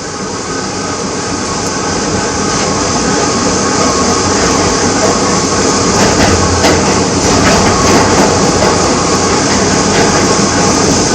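R68 subway car running on the rails, heard from inside, with wheel and track noise and the steady howl of its motors. It grows louder over the first six seconds or so as the train gathers speed, then holds steady.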